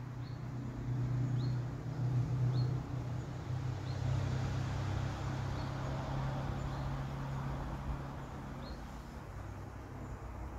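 A motor engine hums low and steady as a vehicle passes, its noise swelling to a peak about halfway and fading near the end. A bird repeats a short high chirp about once a second.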